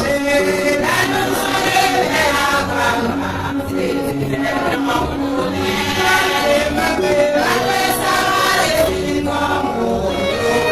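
A congregation choir singing a gospel hymn over an accompaniment with a steady bass line.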